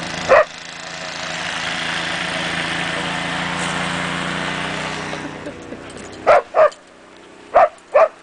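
A dog barking: one bark at the start, then four sharp barks in two quick pairs near the end. Under the first five seconds a motor runs with a steady rushing hum that swells and then fades away.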